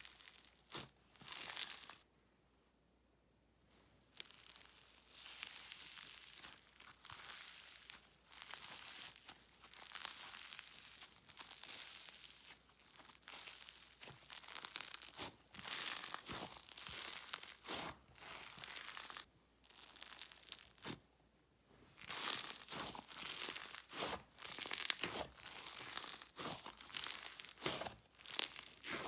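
Dense snowfizz slime worked by hand, giving irregular crunchy, sizzly crackles, with two short pauses.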